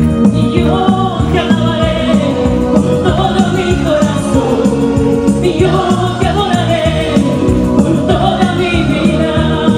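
Live Christian worship song: a man sings the melody into a microphone over electronic keyboard chords and percussion keeping a steady beat.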